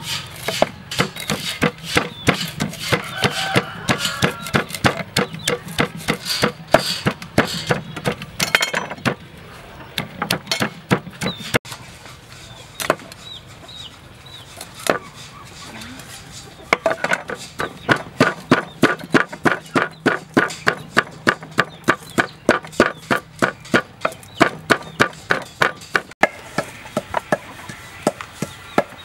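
Wooden pestle pounding in a clay mortar: a steady run of sharp knocks, about three a second, with a sparser stretch midway.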